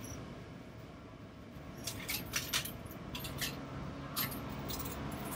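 A scatter of light, sharp clinks and clicks, over the low steady hum of a car idling inside its cabin.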